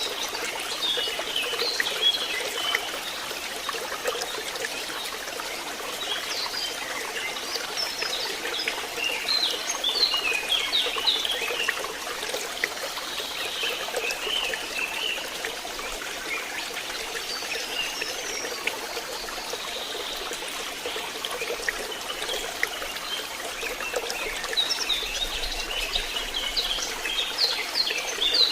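Water trickling and babbling steadily, as in a small stream, with short, high, bright bubbling or chirping notes coming and going in clusters.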